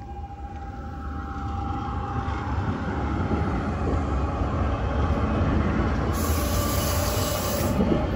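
Munich tram running on its rails, getting louder over the first few seconds and then holding steady, with a faint whine. A high hiss lasts about two seconds near the end.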